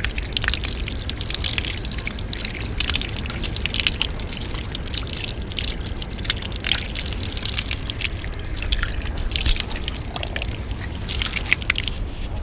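Water running from an outdoor tap and splashing irregularly as gloved hands and a fishing rod are rinsed under it.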